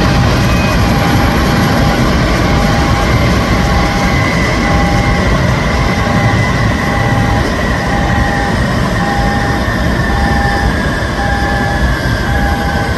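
Boeing 787's GEnx turbofan engines running at taxi power as the airliner rolls past close by: a steady deep rumble and hiss with a whine that slowly falls in pitch. A short beep repeats at even intervals throughout.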